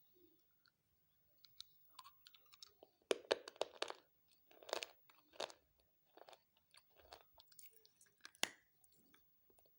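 Close-up crunchy chewing: irregular bursts of crisp crackling crunches, heaviest a few seconds in and again with one sharp crunch near the end.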